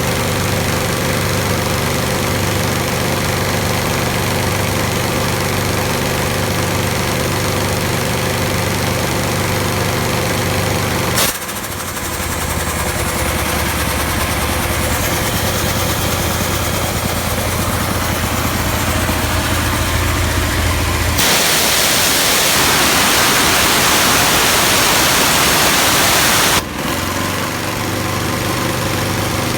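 13 HP two-stage cast-iron Quincy air compressor running steadily. About eleven seconds in, a sharp click, and the running turns lower and more even. Near the end there are about five seconds of loud hiss that cut off sharply, and the compressor's running sound returns.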